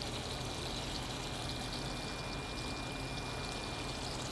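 Raw shrimp sizzling steadily in hot olive oil in a frying pan on high heat, with a faint steady high-pitched tone alongside.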